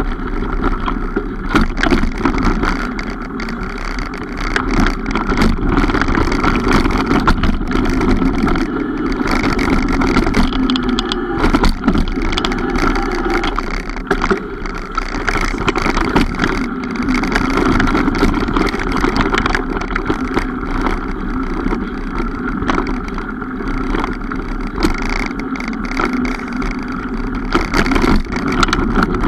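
Mountain bike rolling along a trail: continuous tyre and wind noise with frequent clicks and rattles from the bike over the bumps.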